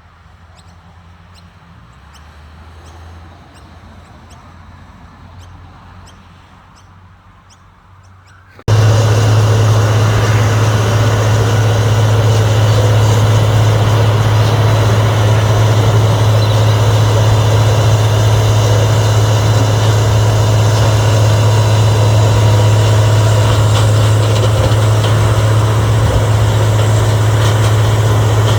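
Heavy engine of an industrial wood grinder (Wood Hog) running steadily with a strong low hum. For the first nine seconds or so it is faint and distant, with light regular ticking; then it turns suddenly loud and close.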